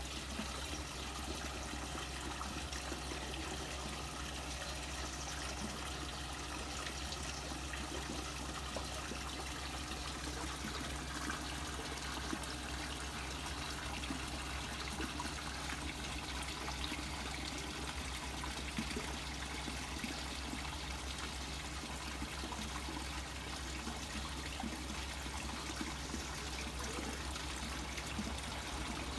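Steady trickle of running water in a koi pond.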